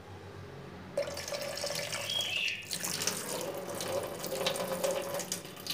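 Kitchen tap turned on about a second in, water running steadily into a metal pot in the sink to rinse it.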